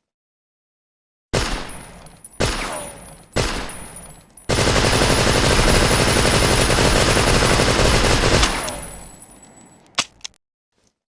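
Tommy gun (Thompson submachine gun) firing: three single shots about a second apart, then a sustained full-auto burst of about four seconds that dies away in an echoing tail. One more sharp crack comes near the end.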